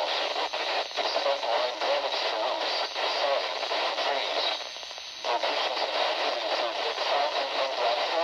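Radio static: a fluttering hiss squeezed into the middle range. It dips briefly about five seconds in.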